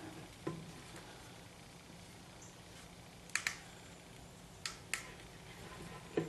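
A few light, sharp clicks and taps from tools and parts being handled, a pair close together near five seconds in, over a faint steady hum.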